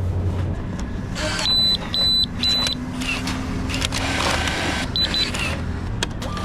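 Short high electronic beeps, three in a row about half a second apart, then two more quick ones later, over a steady low hum and general background noise.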